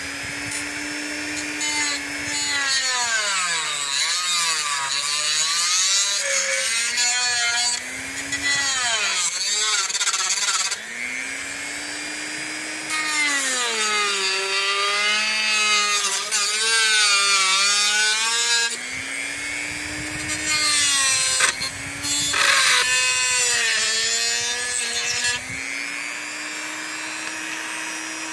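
Small power tool with a cutting blade running and cutting into plastic. Its motor pitch sags again and again as the blade bites into the plastic and climbs back as it eases off, with a rasping scrape over the whine.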